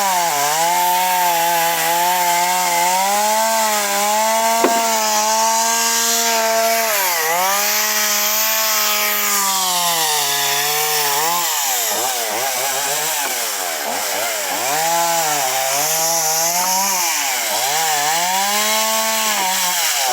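Chainsaw running at high revs while cutting firewood, its pitch sagging as the chain bites into the wood and rising again as it comes free. For the first half it holds long cuts; from about eleven seconds in it makes a run of short cuts with quick dips and recoveries.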